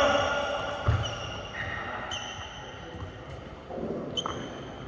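Play on an indoor badminton court: thuds of footwork and hits, with high squeaks coming and going.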